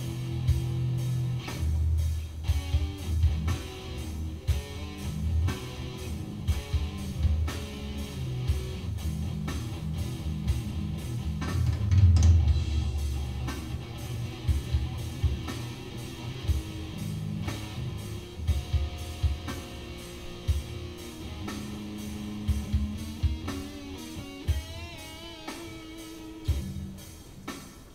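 Electric guitar playing instrumental rock over a steady drum beat, with wavering, bent notes near the end.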